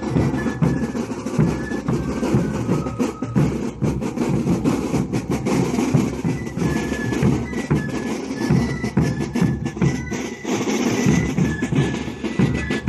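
A drum troupe of large bass drums and smaller drums beating a fast, steady dance rhythm, with a thin high melody of short repeated notes above it.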